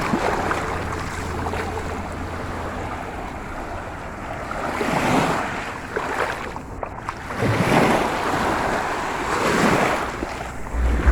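Sea surf washing onto the beach, swelling three times as waves break, with wind rumbling on the phone's microphone at the start and again near the end.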